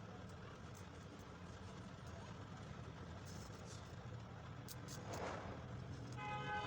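Traffic going past with a steady low rumble and a few light clicks. Near the end a vehicle horn starts honking.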